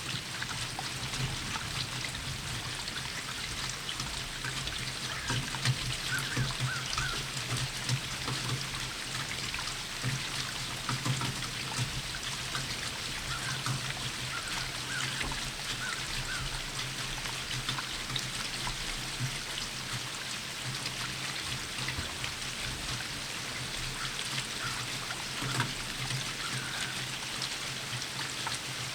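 Steady rain falling, with many small drops ticking close by and a low steady hum underneath. A few faint chirps come through now and then.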